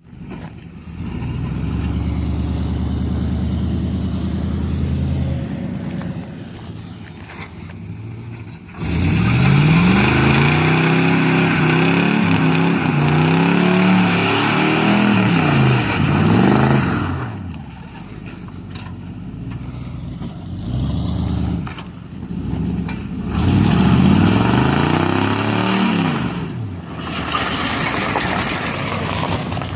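Car engine revved repeatedly, its pitch climbing and falling in quick sweeps, with a loud rushing noise over it from about nine seconds in. A steadier held engine note comes before.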